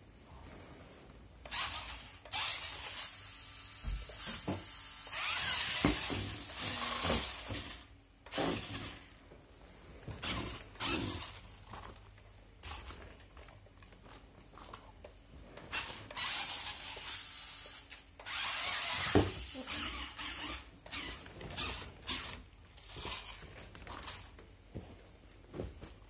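Small electric motor and gears of a toy 4x4 RC rock crawler whining in stop-start bursts as it is driven, the longest runs lasting a few seconds, with short knocks and rattles in between.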